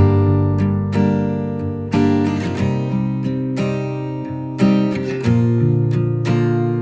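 Background music: acoustic guitar being strummed, with chords changing about once a second.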